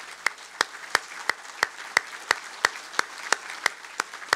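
Applause: one person clapping close to the microphone, sharp claps at about three a second, over softer applause from the crowd.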